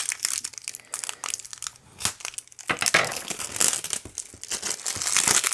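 Wrapping crinkling, crackling and tearing in irregular bursts as it is cut and pulled off a rolled diamond painting canvas, busiest in the second half.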